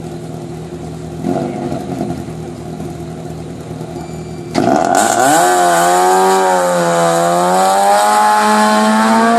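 Fiat Punto's 2.0-litre 16-valve engine idling at a hillclimb start, with a short rev about a second in. About four and a half seconds in it suddenly goes loud as the car launches, the engine note rising and then held high and wavering as it pulls away at full throttle.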